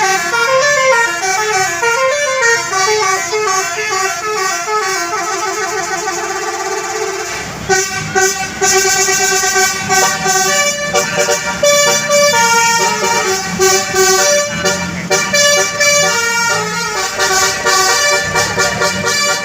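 Basuri musical air horn on a bus playing a telolet melody of quickly stepping notes. About eight seconds in it changes to a louder tune with longer held notes.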